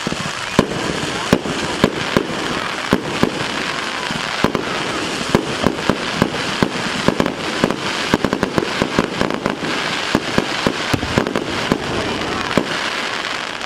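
Fireworks going off in a dense, continuous string of sharp bangs and crackles, many per second, with the thickest flurry of pops about two-thirds of the way through.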